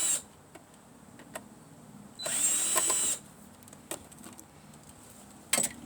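Electric drill-driver whirring in two short runs of about a second each, spinning up and then holding speed, backing small screws out of scrap electronics. A brief click or clatter comes near the end.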